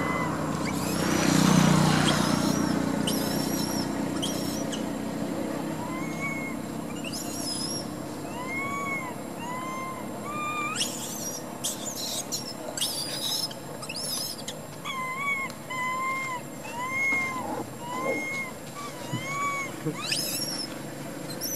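Baby macaque crying: a long series of short, arched, whimpering coos, about one a second, starting about six seconds in. Short sharp high chirps come and go throughout, and a low rumble fades over the first few seconds.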